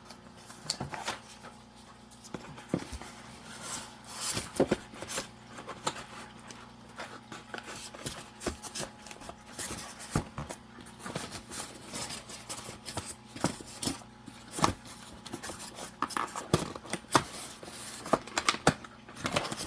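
Irregular clicks, scrapes and rubbing as an aquarium light and its packaging are handled. The noises come several times a second in uneven bursts over a faint steady hum.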